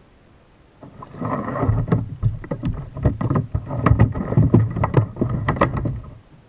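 A hooked fish thrashing at the side of a plastic kayak, with rapid irregular knocks on the hollow hull and splashing for about five seconds, starting about a second in.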